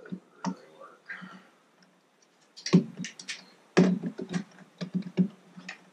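Irregular sharp clicks and light knocks from hands working hose and fittings on an outboard motor. The clicks come in a cluster of about nine during the second half.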